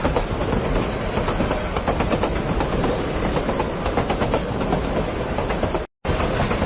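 Hankai Tramway Mo 161 series streetcar running on its rails, a steady rattling rumble of wheels on track with many small ticks. The sound cuts out for an instant near the end, then carries on.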